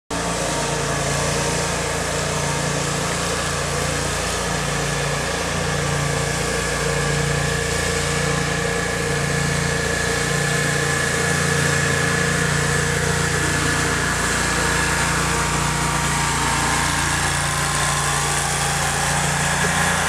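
Small engine of a walk-behind stump grinder running steadily at an even speed.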